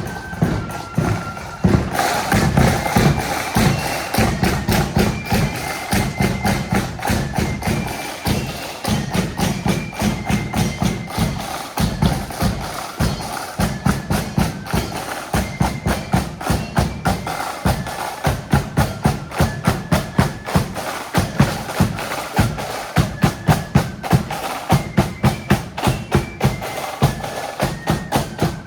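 Marching flute band playing a march: flutes carry the melody over a steady beat of snare and bass drums. The sound grows fuller and louder about two seconds in.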